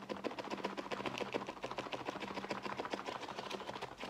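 A closed McDonald's salad box shaken hard by hand to mix in the dressing: the salad, pasta and mozzarella pieces rattle and knock against the box in a fast, even rhythm, about ten strokes a second.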